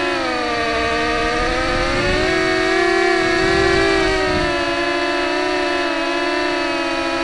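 Electric motors and propellers of an RC quadcopter whining steadily. Several pitches glide up and down together as the throttle changes, rising a couple of seconds in and easing back down.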